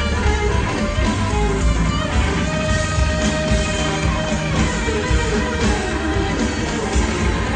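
Live rock band music: an electric guitar plays a lead line with held and sliding notes over drums.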